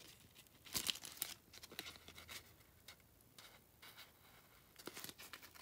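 Soft rustling and light clicks of a paper photo card being slid into a clear plastic tag holder, with a few sharper taps about a second in.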